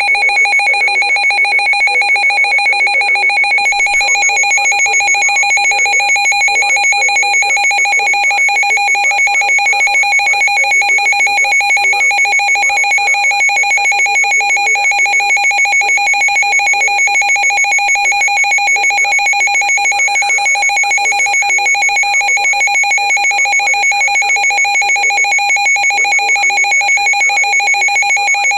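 Emergency alert attention tone sounding without a break: a loud electronic tone at a fixed pitch with a fast, even flutter. It signals an emergency warning, here a severe thunderstorm warning.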